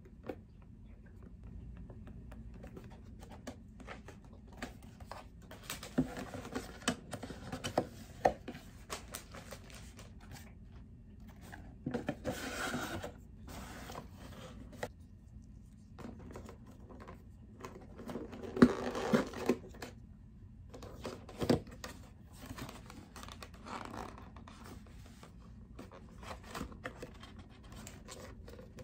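Pen scratching on card, then cardboard being folded and handled: rubbing, scraping and creasing in irregular bursts with a few sharp taps, the loudest bursts about twelve and nineteen seconds in.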